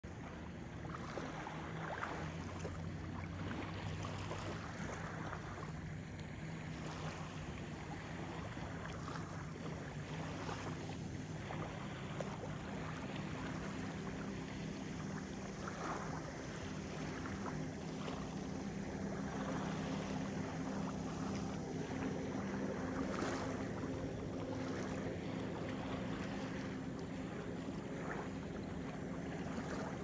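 Small ripples lapping gently in shallow lake water at the shore, with many soft little splashes and a low steady hum underneath.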